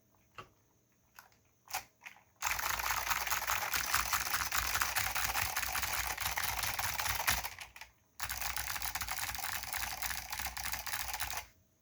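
Custom Filco Zero mechanical keyboard with clicky Alps SKCM White switches, lubed with dry lube, and Alps doubleshot keycaps, being typed on. A few single keystrokes come first, then a long run of fast typing, a short pause near the middle, and another fast run that stops shortly before the end.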